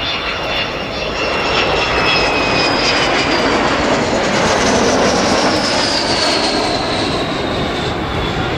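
Avro Vulcan XH558's four Rolls-Royce Olympus turbojets in a loud flypast. A high whine above the jet noise falls slowly in pitch as the bomber passes, and the sound swells to a peak about halfway through.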